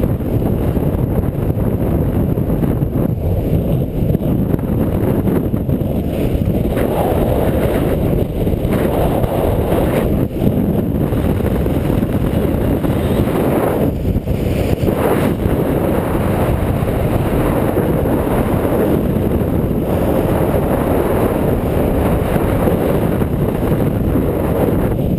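Strong wind buffeting a GoPro microphone on a sailboat under sail: a steady, loud, low rumble that swells and eases now and then.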